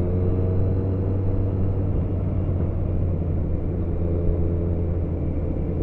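Motorcycle engine running at a steady cruise, heard from a helmet-mounted camera with wind rush over the microphone.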